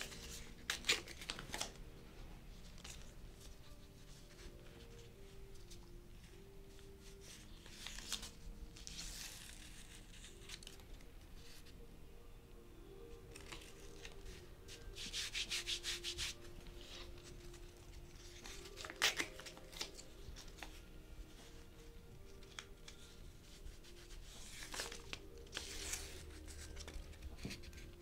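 Kinesiology tape being applied to bare skin: backing paper peeled and torn off the tape, and strips rubbed down onto the back by hand. It comes as short scratchy bursts a few seconds apart, with one fast crackling run about halfway through.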